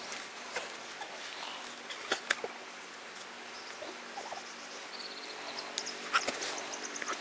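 Quiet open-air ambience: a steady hiss with a few sharp knocks about two seconds in and again near six seconds, and a faint, rapidly repeated high chirping in the second half.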